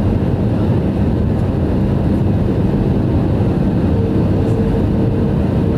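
Airbus A321 jet engines and airflow heard inside the cabin on final approach: a steady, loud, low roar. A faint steady whine joins it about four seconds in.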